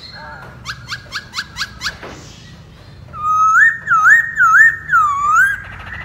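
Black-throated laughingthrush (poksay Hongkong) singing: a quick run of about six short, rising whistled notes, then, after a brief pause, a loud whistled phrase that swoops up and down four or five times.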